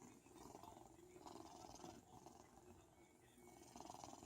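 A cat snoring faintly in its sleep, with soft noisy breaths in a slow, even rhythm.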